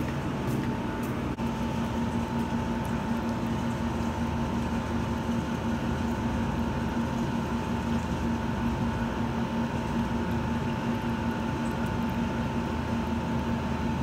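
A steady machine hum with two held tones, one low and one higher, over a constant noisy background.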